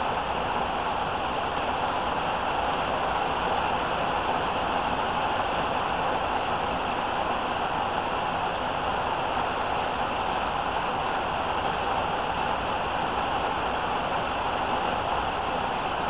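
Heavy rain pouring down steadily, an even unbroken rush with no thunder.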